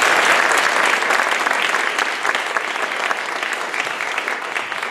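Audience applauding: dense clapping that slowly thins toward the end.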